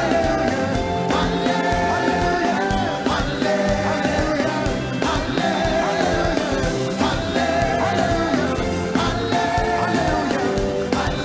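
Live gospel praise music: a band playing an upbeat groove with voices singing the melody.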